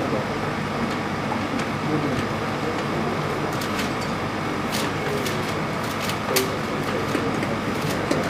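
Steady hum and hiss of room tone, with faint voices and a few light clicks.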